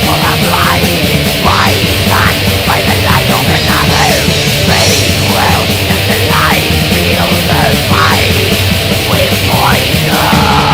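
Black metal recording played loud: a dense wall of heavily distorted guitars with fast, unbroken drumming and cymbals.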